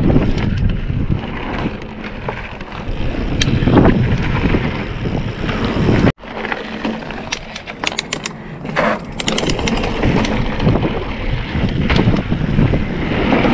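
Mountain bike riding on trail: wind buffeting the microphone over tyres rolling on boardwalk and dirt, with the bike clicking and rattling over bumps. The sound cuts out abruptly for a moment about six seconds in, then the riding noise resumes.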